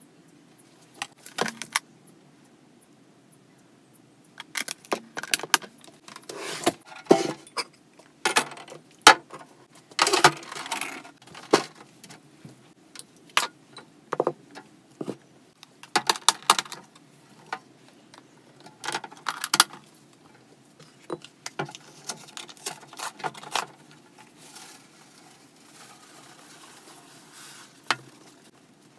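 Irregular clatter and clinks of hard hamster-cage parts and accessories being handled and set down as the cage is taken apart for cleaning. The sound comes in bunches with short pauses and tails off to faint rustling in the last few seconds.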